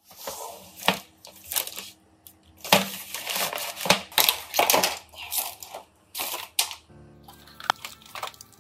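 Thin plastic bag crinkling and rustling loudly in a run of irregular bursts as hands pull it open and handle it, stopping about seven seconds in. After that come a few light clicks of small items over soft background music.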